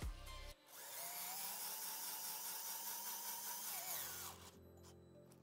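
Cordless power screwdriver driving a 7/16 socket, tightening the nut on a carriage bolt. It starts about half a second in, runs as a steady motor whine for about three and a half seconds, then stops.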